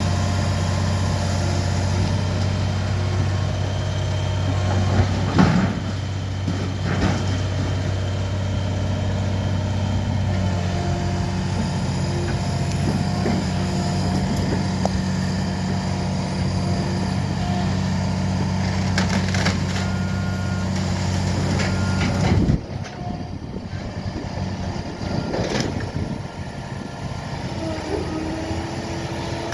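Heavy diesel demolition machinery running steadily under load, with a few sharp knocks and clanks. The engine sound drops off suddenly about three-quarters of the way through, leaving a quieter rumble and another clank.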